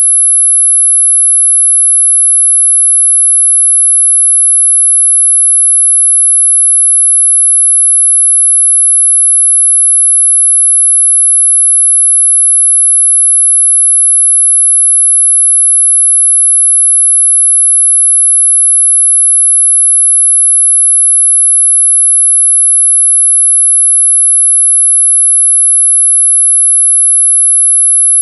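A steady, unbroken 11 kHz pure sine tone, high-pitched and constant in level: a synthesized tone for masking high-pitched tinnitus ringing.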